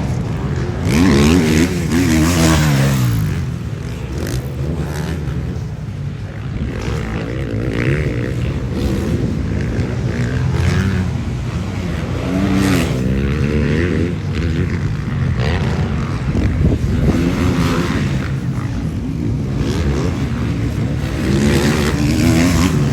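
Motocross motorcycle engine revving hard, its pitch rising and falling over and over as the throttle opens and closes and the gears change.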